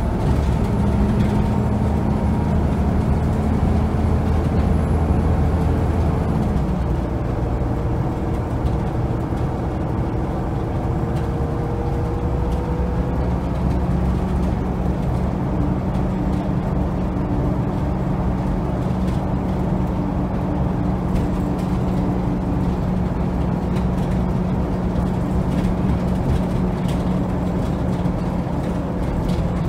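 Volvo B7TL double-decker bus on the move, heard from the rear of the lower deck: its 7-litre six-cylinder diesel and driveline running under way with road noise. The deep engine note falls away about six seconds in, and a steady whine holds after that.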